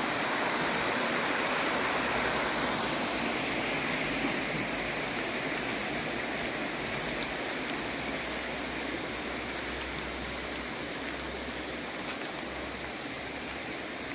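Steady rush of flowing water from a creek running over rocks or a small waterfall.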